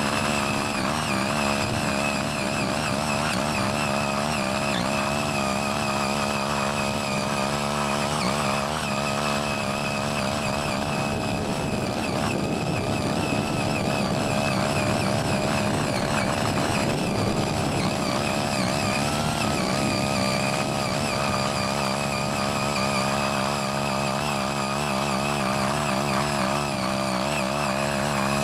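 Small engine of a CY80 walk-behind mini tiller running steadily under load while its eight rotary tilling blades churn soil, the engine note wavering slightly as the tines dig.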